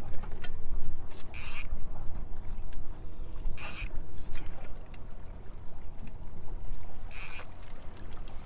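Sea water sloshing and splashing around a camera held just under the surface, with a low steady rumble and three short splashes.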